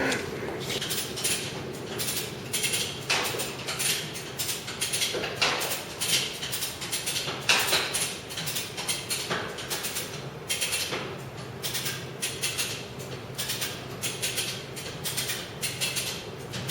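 Irregular metallic clinks, taps and rattles of hand tools and parts being handled, over a steady low hum.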